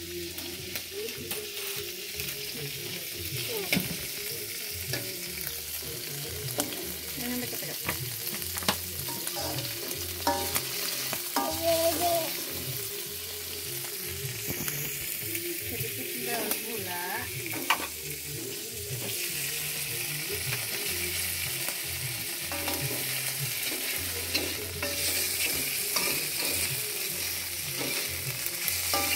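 Sea snail and crab pieces sizzling in a little oil in a metal wok. A spatula stirs them, with frequent small scrapes and clicks against the pan.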